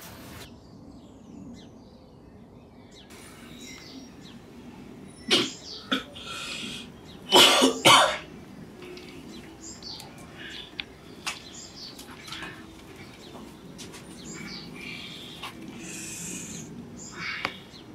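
A man coughing several times, hardest in a double cough about halfway through. Birds chirp faintly now and then in the background.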